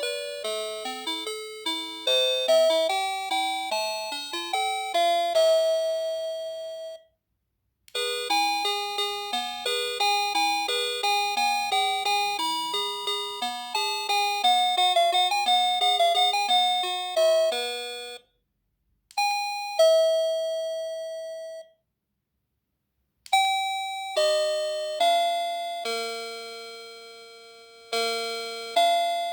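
NX-5776-675 doorbell playing a run of its electronic chime tunes, bell-like notes that each fade out. Two quick many-note melodies come first, each ending in a pause. Then comes a short two-note ding-dong, and after another pause a slower tune of single notes about a second apart.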